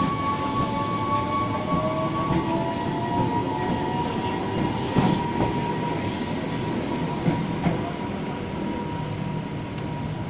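Tokyu 8000 series electric train running, with a whine that rises in pitch over the first few seconds and a steady high tone, and a couple of sharp clicks about halfway through. The uploader calls it a strange sound from the train.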